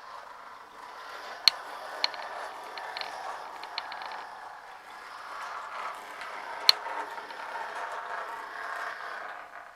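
Model railway locomotive running along the track, its small motor and gears making a steady mechanical whirr, with a couple of sharp clicks. The whirr fades away near the end.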